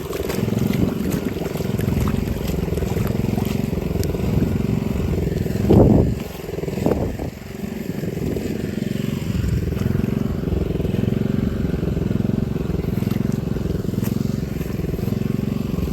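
Small engine of a rice-paddy weeding machine running steadily, with a slow, even pulsing; it swells louder briefly about six seconds in and again a second later.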